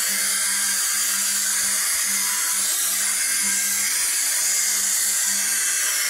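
Electric drill spinning a wire brush against the sheet-metal cabinet of a washing machine: a steady, high scouring hiss over the motor's hum as it scrubs off rust.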